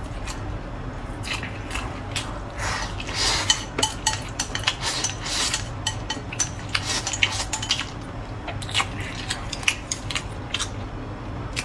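Wooden chopsticks tapping and scraping against a ceramic bowl as the last food is picked out, many short irregular clicks, with chewing between.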